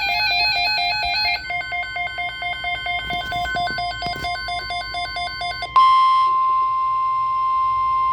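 NOAA Weather Radio alert tones: an electronic alarm warbling between two pitches, then beeping rapidly. About six seconds in, the alarm gives way to the loud, steady 1050 Hz weather radio warning tone, which signals that an alert message is about to follow.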